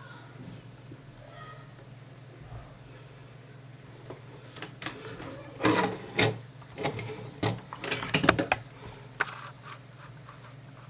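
Clicks and knocks of a metal LNB connector socket being handled and pressed into a receiver's circuit board, in a busy run after a few quiet seconds, over a steady low hum.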